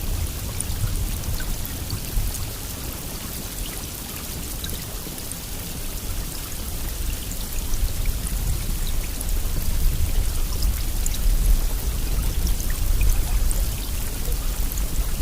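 Steady rain falling heavily, with scattered drop ticks over an even hiss. A low rumble underneath grows louder about halfway through.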